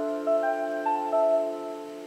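Background music: a soft piano-like keyboard holding a chord while a few single melody notes come in over it.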